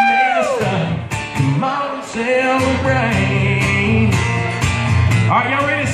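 Live country music: a man singing into a microphone while strumming an acoustic guitar. A long held sung note ends about half a second in, then the strummed chords and singing carry on.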